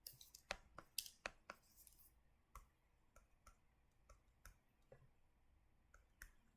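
Faint, irregular clicks and light taps, thick in the first two and a half seconds and sparser after, from a structure being drawn by hand on screen.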